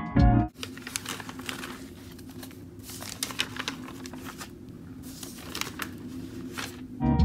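Paper pages of a spiral-bound notebook being flipped through by hand: a run of quick, crisp rustling flicks over a faint steady hum.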